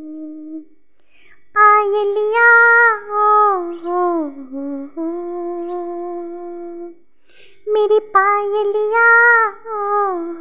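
A woman singing two long melodic phrases, each stepping down in pitch toward its end, with little accompaniment.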